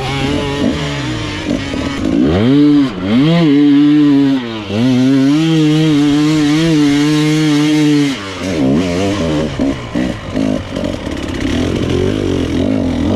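Dirt bike engine revving under throttle. Two quick rises and falls in revs a couple of seconds in, then held at high revs for about three seconds, then dropping back and rising and falling unevenly.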